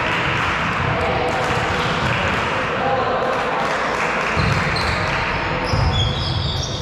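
Echoing voices of players and spectators in a sports hall, with dull thuds of a volleyball being served and passed.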